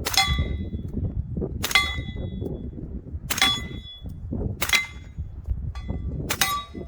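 Five suppressed subsonic 300 Blackout AR shots, about a second and a half apart, each followed by a short metallic ring like a steel target being hit. The rifle wears a Q Full Nelson suppressor and fires 220-grain subsonic hollow points.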